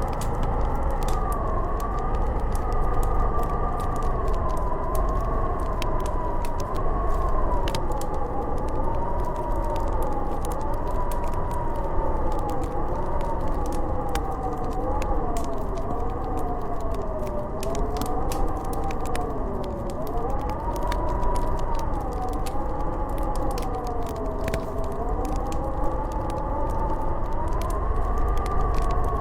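Howling blizzard wind: a wavering whistle that slowly rises and falls in pitch over a low rumble, with the scattered sharp pops of a crackling wood fire.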